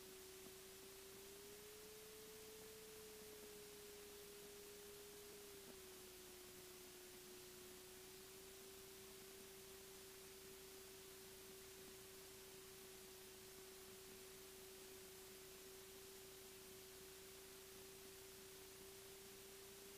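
Near silence with one faint, steady pure tone over light hiss; the tone rises a little in pitch for a few seconds, then settles back lower and holds.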